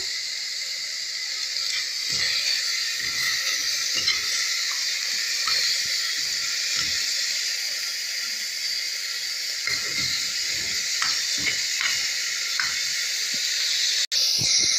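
Butter sizzling with chicken pieces in a metal pot on the stove. The sizzle is a steady hiss, with small knocks and scrapes now and then from a metal spoon stirring against the pot. The sound drops out for an instant near the end.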